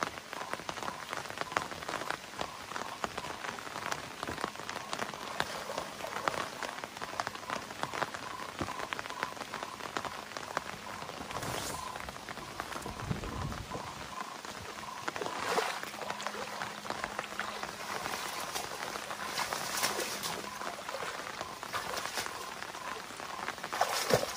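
Steady rain pattering on the river surface and the leaves around it. Near the end there is a louder splash of a foot wading through the shallows.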